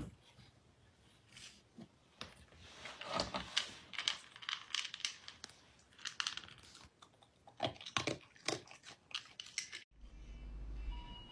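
Raccoon rummaging and eating from a plastic jar: irregular crunching, crinkling and scratching clicks in bunches. Near the end this cuts off abruptly and gives way to a steady low hum.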